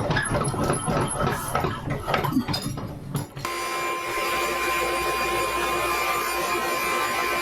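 Clicks and knocks of a workpiece and tools being handled, then about three and a half seconds in an electric power saw starts and runs steadily to cut the melamine board.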